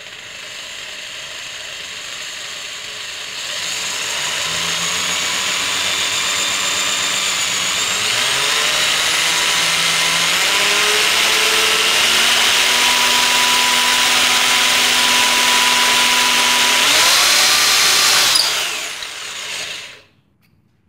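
Electric drill running through a Powerfix 90-degree angle drill attachment, its twist bit boring a hole in a strip of wood. A steady whine grows louder a few seconds in and steps in pitch a couple of times, then winds down and stops near the end.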